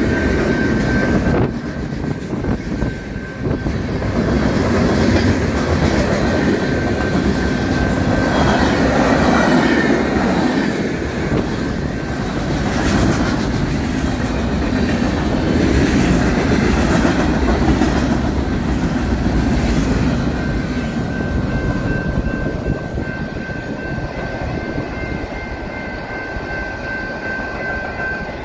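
A freight train's cars rolling past at a grade crossing, the wheels clacking over the rail joints; the rumble eases off after about 20 seconds as the last cars go by. The crossing bell rings steadily throughout and is heard more clearly near the end.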